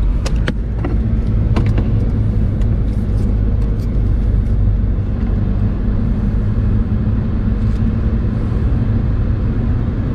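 Car driving, heard from inside the cabin: a steady low rumble of engine and tyres, with a few sharp clicks in the first two seconds.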